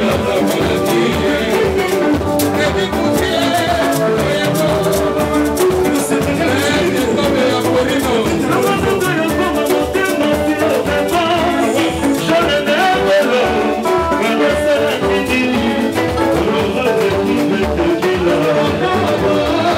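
Congolese dance-band music: a male singer over electric guitars and drum kit with a steady, driving beat.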